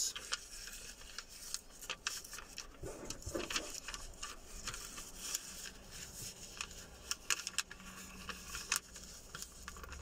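A square of paper rustling and crackling as it is folded by hand along its pre-made creases, with a scatter of short crisp crinkles throughout.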